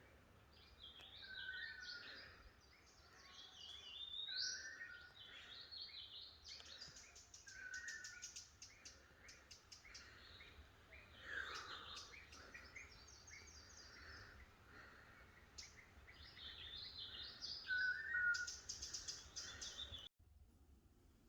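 Several birds singing, with overlapping phrases and chirps repeated throughout. The sound cuts off abruptly near the end.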